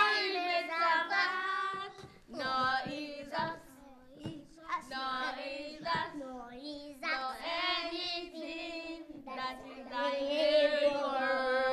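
Children and a woman singing together unaccompanied, in short sung phrases with brief pauses between them, with hand clapping along.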